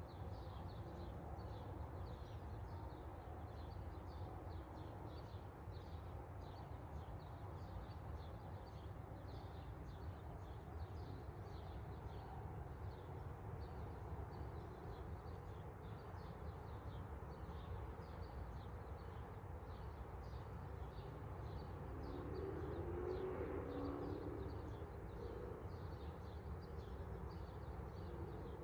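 Small birds chirping repeatedly over steady low background noise; about two-thirds of the way through, a louder low sound swells for a few seconds and fades.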